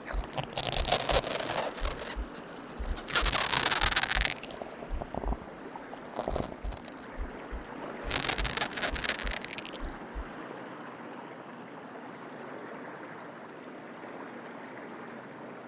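Night ambience sound effects: three hissing swells of noise over the first ten seconds, then a faint steady background with crickets chirping.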